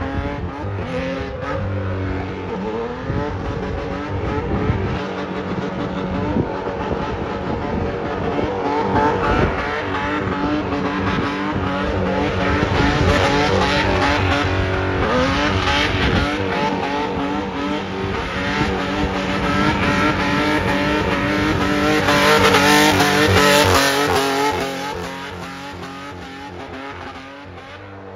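Nissan 4x4 drifting: the engine revs up and down hard over the continuous screech of sliding tyres. It gets loudest about three-quarters of the way through, then fades as the car moves away near the end.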